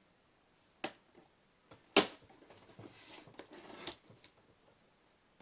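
Box-cutter knife slicing packing tape and cardboard on a speaker box: a click, a sharp knock about two seconds in, then a rasping scrape of the blade through the tape and another click.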